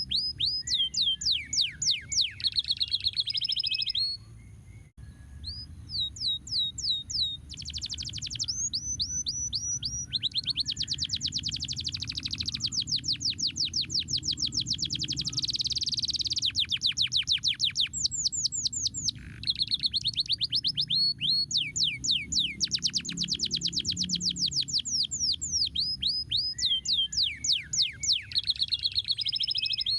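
Domestic canary singing long, rapid trills of quickly repeated falling notes, changing from one trill to the next, with short pauses between phrases.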